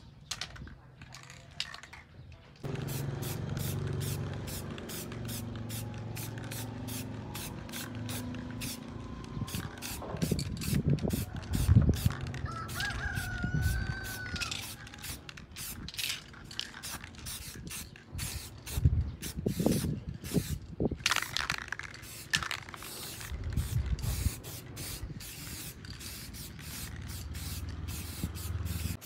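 Short hissing sprays repeating two or three times a second over a low steady hum that starts a few seconds in.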